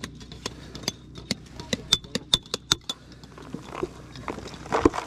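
Sharp metallic taps of a rock hammer on a knife blade wedged between the layers of a rock slab, about three to four a second, splitting it open to look for fossils. Then scraping and clatter of loose rock, with one louder knock near the end.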